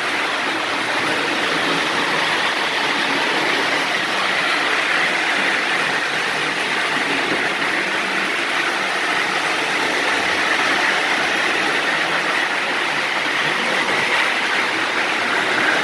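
Restored Lionel 221 O-gauge toy steam locomotive running steadily on the track while pulling coaches: a continuous whirring, rumbling noise from its electric motor and wheels on the rails. It is running well.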